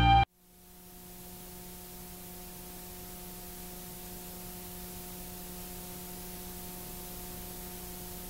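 Orchestral music cuts off abruptly just after the start, followed by steady hiss with a low hum: the background noise of an old analog video transfer, fading up over the first second and then holding steady.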